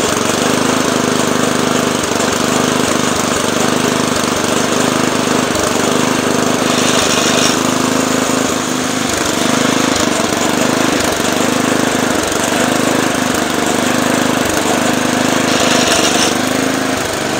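Briggs & Stratton Intek 206 single-cylinder engine on a McLane reel mower running rough and uneven. The owner takes the roughness for a bad aftermarket carburetor, leaving the engine underpowered.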